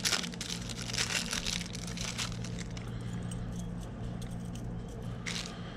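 Small metallic clicks and scrapes as a tapered roller bearing race is handled and pushed into the swing arm hub by hand, busiest in the first two seconds, with one sharper click near the end. A steady low hum sits underneath.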